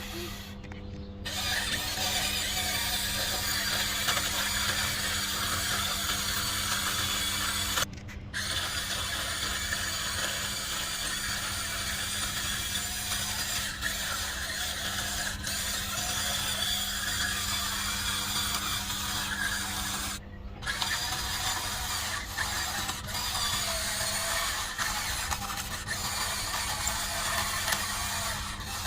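Small electric motors and gearboxes of a radio-controlled toy construction model running with a whining, grinding mechanical sound. They stop briefly three times as the controls are released.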